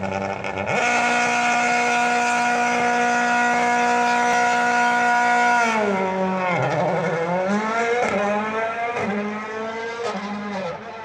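Rally car engine held at steady high revs on the start line, then launching: the revs dip and climb through several quick upshifts as it accelerates away.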